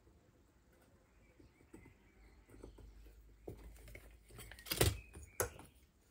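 Light handling clicks of a tape measure and scriber on square metal tube, then two sharp knocks about half a second apart near the end as the short cut lengths of square tube are picked up and knocked against each other and the bench.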